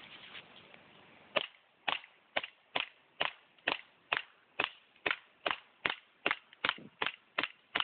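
Airsoft gun firing BBs in a steady series of sharp shots, about two a second, starting about a second and a half in.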